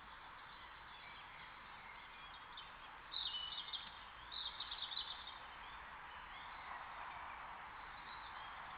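A bird calling in two short bursts of rapid chattering, about three seconds in and again about a second later. Under it runs the steady hiss of a trail camera's microphone.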